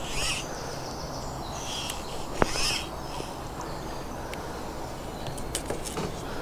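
Wild birds singing and chirping in short high phrases, with one sharp click about two and a half seconds in.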